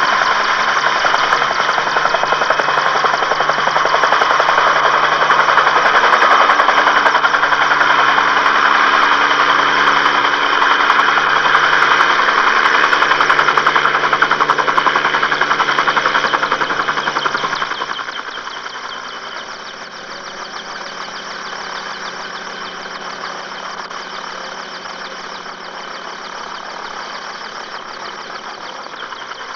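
Rescue helicopter's rotor beating and turbine whining as it comes in to land, with a steady high whine over a fast rotor beat. About two-thirds of the way through the sound drops to a lower, steadier level.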